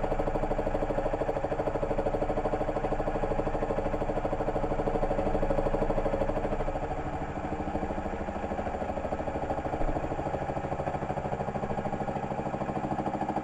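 Small benchtop milling machine running a 50 mm indexable face mill with carbide APMT1604 inserts, taking a light 20-thou facing cut across an aluminium block. The motor and spindle give a steady hum with a fast, even pulsing as the inserts strike, and the cut runs smoothly and cleanly. It gets a little quieter about seven seconds in.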